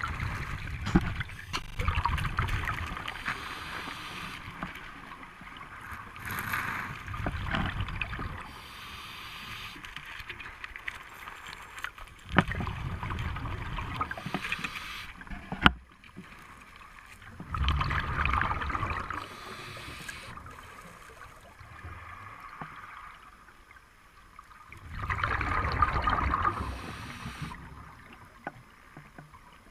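Scuba diver's exhaled breath bubbling out of the regulator underwater, in bursts about every five to six seconds with quieter water noise between.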